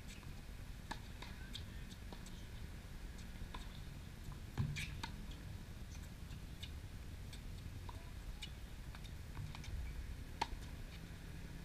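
Tennis ball struck by a racket close by about halfway through, with a second sharp hit near the end and fainter scattered clicks of shots and bounces farther off, over a low steady outdoor rumble.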